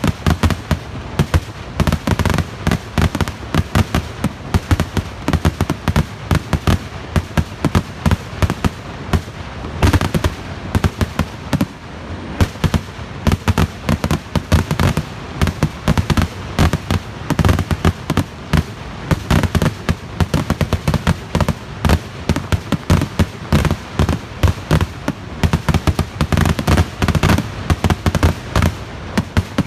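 Fireworks display going off in a dense, unbroken barrage of bangs and crackling, many explosions a second, as aerial shells burst and ground-launched fireworks fire.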